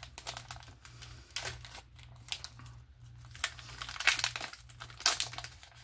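Yu-Gi-Oh booster pack wrapper being handled and torn open by hand, the plastic wrapper crinkling and crackling in irregular short bursts.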